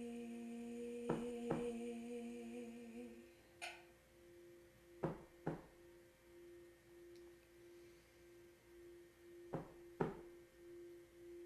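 A steady hum fades out about three seconds in, leaving a tuning fork ringing on a single tone with a slow waver. The fork is struck again three times, each time with a pair of quick taps.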